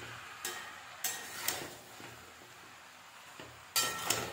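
A spatula scraping and knocking against a kadhai as chunks of boiled yam and potato are stirred: a few short scrapes in the first second and a half and a longer one near the end, over a faint frying sizzle.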